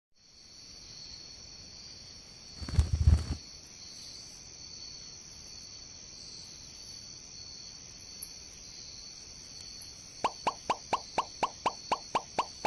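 Cartoon night ambience of crickets trilling steadily. About three seconds in there is a brief low whoosh, and near the end a quick run of sharp ticks, about five a second.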